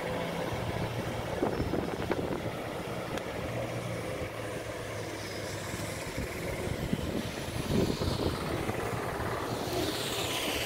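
Mahindra Thar 4x4's engine running steadily as the vehicle ploughs through floodwater, heard from a distance.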